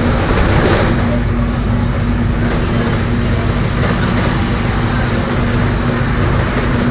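Mercedes-Benz OF-1721 city bus (Marcopolo Torino body) driving at low engine speed, its differential giving a steady, even-pitched drone over the low running noise of the drivetrain: a growling differential.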